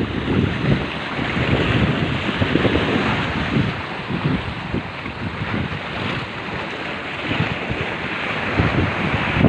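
Water washing steadily, with wind gusting and buffeting on the microphone in irregular low rumbles.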